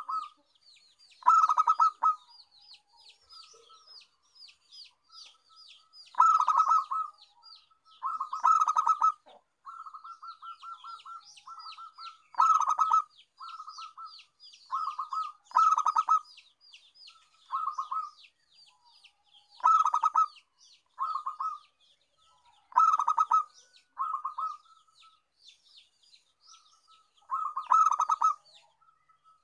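Zebra dove (perkutut) cooing: repeated short bursts of rapid, staccato coos every one to few seconds. Beneath them runs a fainter, fast, high-pitched twittering.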